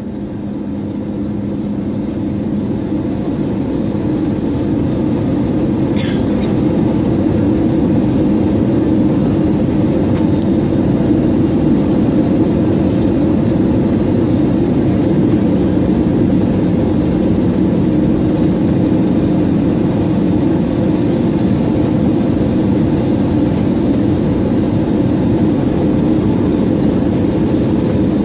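Airbus A320-216 cabin noise in flight, heard from a window seat beside the CFM56 engine: a steady, loud rush of engine and airflow with a low hum. It swells in level over the first several seconds, and there is one brief tick about six seconds in.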